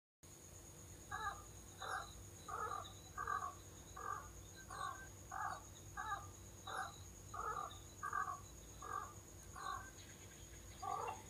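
A bird calling over and over in a long, evenly spaced run of about fifteen calls, roughly two a second.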